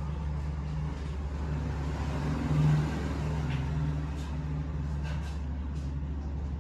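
A power tool's electric motor running steadily with a low hum, with brief higher scraping hisses now and then.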